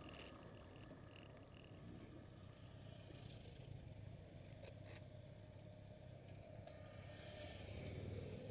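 Motorcycle engines running faintly at a slow crawl, with the revs rising near the end as the bikes pull away.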